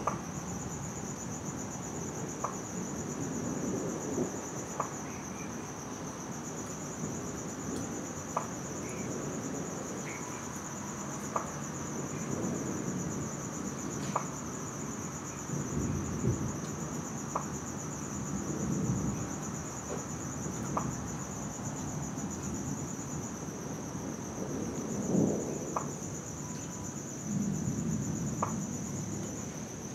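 Crickets trilling steadily, with several low rumbles of distant thunder coming and going.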